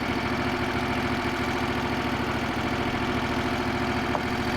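Gasoline engine of a portable Wood-Mizer band sawmill idling steadily with the throttle backed off between cuts.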